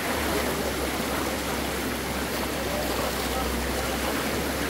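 Shallow rocky river rushing over boulders through small rapids: a steady, even rush of water.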